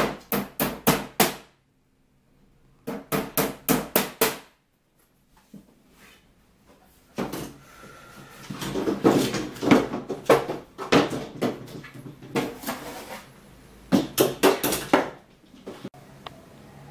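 Hammer tapping on a wooden furniture drawer during assembly: quick runs of about six blows each, three or four a second. In the middle comes a longer stretch of irregular knocking and clatter as the drawer is handled.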